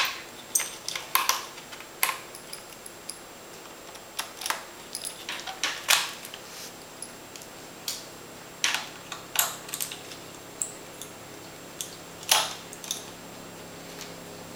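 Irregular small clicks and taps of a screwdriver working on a laptop's hard drive cover, with the loose screws and the cover set down on a tiled table.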